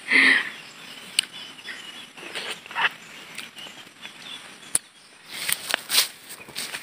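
Outdoor background with faint birds and insects, and a few crisp crunches as a raw fruit is bitten into. Near the end come several footsteps in rubber flip-flops on a dirt path.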